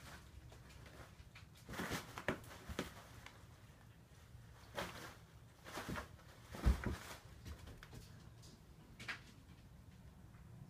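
Crumpled paper towels rustling in short bursts as a cat bats and paws at them on a countertop, with a thump about two-thirds of the way through.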